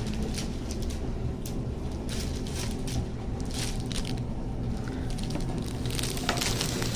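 Sticky gelatin slime being squeezed and worked by hand, giving soft irregular crackles and squelching clicks over a steady low room hum.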